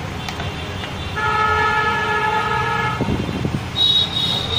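A vehicle horn sounds once, a steady honk of nearly two seconds starting about a second in, over a continuous rumble of road traffic. A short clatter follows, then a second, higher-pitched steady tone begins near the end.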